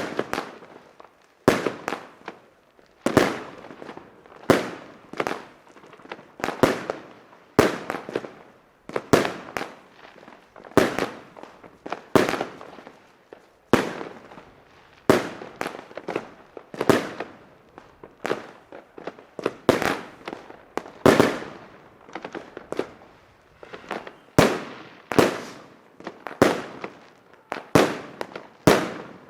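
Firecrackers going off one after another, sharp bangs at irregular intervals about a second apart, each trailing off in a short echo.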